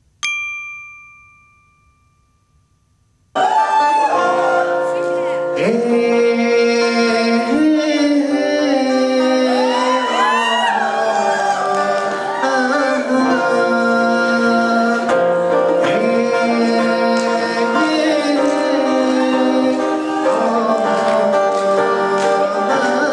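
A bell-like chime rings once at the start and dies away. About three seconds in, music starts at full volume: a man singing, with gliding ornamented notes, over acoustic guitar.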